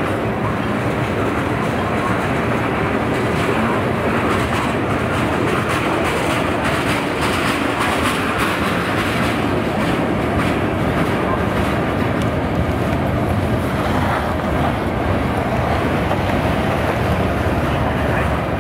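A train's cars rolling past on the track: a steady rumble of steel wheels on rail with a constant rapid clicking and clatter.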